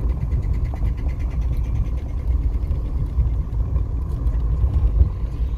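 Car driving, with a steady low engine and road rumble heard from inside the cabin.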